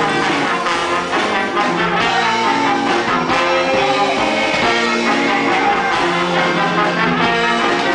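Live band playing instrumental music led by horns, with drums, guitar and accordion.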